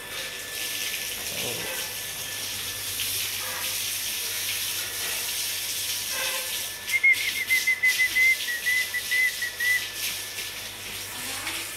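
Hose water under pump pressure spraying hard onto a wet concrete floor and a water buffalo's legs: a steady hissing splatter that turns louder and choppier about seven seconds in. A wavering whistle-like tone sounds over it for about three seconds near the same point.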